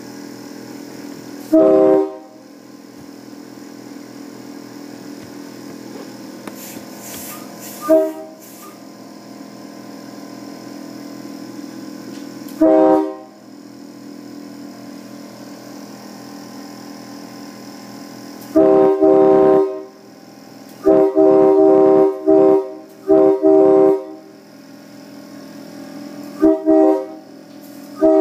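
Multi-chime, train-style air horn sounded in short chord blasts (horn fanning): several single blasts a few seconds apart, then a longer blast and a quick string of three or four blasts past the middle, and two more short blasts near the end. A steady hum runs underneath between the blasts.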